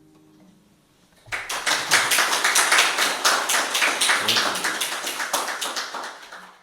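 The last acoustic guitar notes die away, then hand clapping starts about a second in and runs fast and steady until it stops abruptly at the end.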